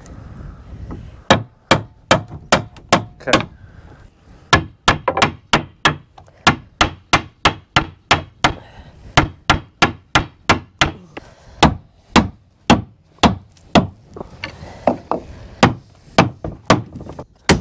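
Repeated hammer blows on timber, about two to three a second in long runs with one brief pause, driving a bent length of new wooden beam shelf down into place in a wooden boat's hull.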